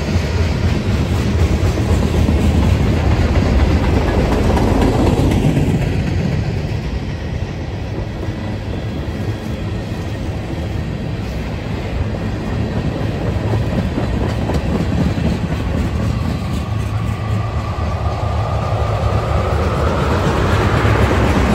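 CSX freight train's cars rolling past: a loud, steady rumble and clatter of steel wheels on rail. A rising whine comes in near the end.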